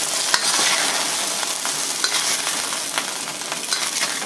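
Oil sizzling in a hot wok as stir-fried chicken is scooped out with a metal wok spatula, with a few clicks and scrapes of the spatula against the pan. The sizzle eases off toward the end as the wok empties.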